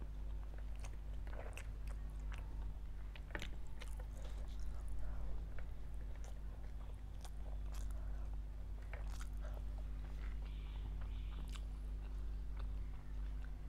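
Close-miked chewing, biting and wet mouth clicks of a person eating rice and curry by hand, over a steady low hum.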